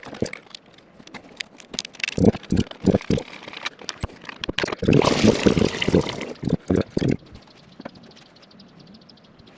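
Hand tools and metal engine parts clicking and knocking in an irregular run while the timing-belt tensioner pulley and water pump are being undone, with a denser, noisier stretch about five seconds in. It goes quiet for the last couple of seconds.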